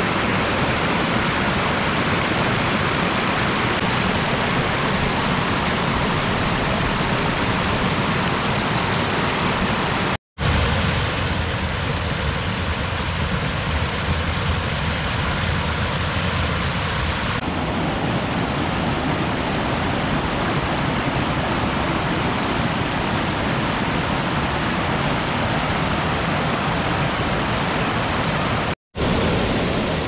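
The Holtemme river tumbling down the rocky steps of the Steinerne Renne waterfalls: a steady, dense rush of falling water in strong flow. The sound drops out abruptly for a moment twice, about ten seconds in and near the end.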